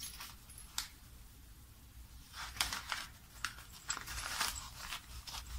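Handling noise from a fabric Faraday pouch as a car key fob is slid inside and the flap is folded shut: a light click just before a second in, then a run of short crinkling rustles from about two and a half seconds.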